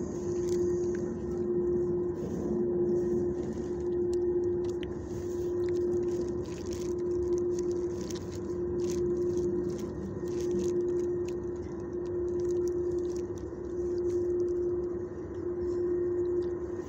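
A steady mechanical hum with one low tone, swelling and easing about every two seconds.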